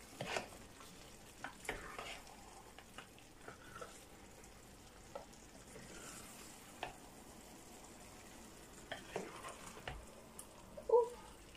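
Spatula stirring and scraping a vegetable-and-egg tomato sauce in a non-stick frying pan, with a faint frying sizzle underneath and scattered light scrapes and taps.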